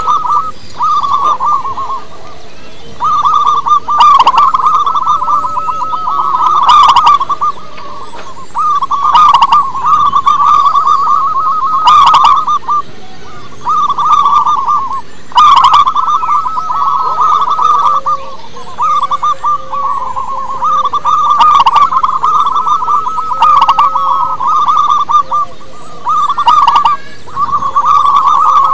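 Zebra dove (perkutut) singing: phrase after phrase of rapid, rattling coos, each lasting a second or two with short gaps between.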